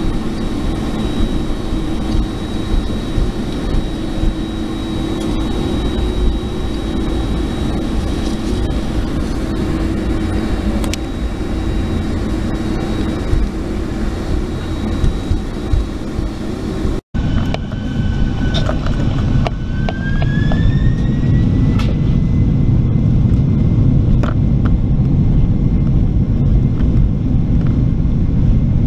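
Boeing 747-400 jet engines heard from inside the cabin: a steady whine and rumble while the aircraft taxis. After an abrupt cut, the engines spool up for takeoff with a rising whine and a growing low roar.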